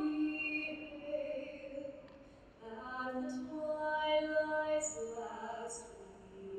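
A woman singing the national anthem solo and unaccompanied, in long held notes, with a short breath pause about two seconds in before the next phrase begins.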